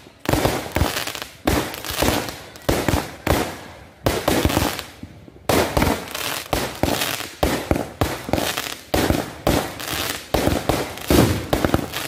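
Aerial fireworks going off in a rapid series of bangs, with a brief lull about four seconds in before the bursts resume.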